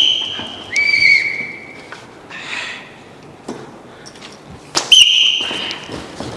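Three short, steady, high whistle tones, each about a second long: one at the start, a lower one about a second in, and another about five seconds in. The first and last each open with a sharp smack.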